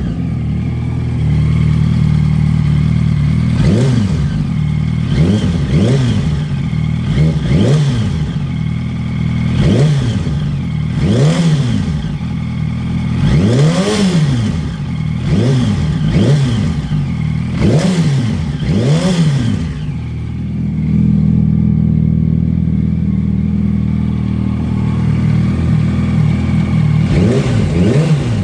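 2008 Yamaha YZF-R1 inline-four engine idling and blipped again and again with quick throttle revs, then idling steadily before a few more revs near the end. A rattle is heard from the top of the engine, toward the exhaust side of the valve train. The owner has ruled out the cam chain tensioner and the valve adjustment, and suspects a loose rocker arm or a bent valve.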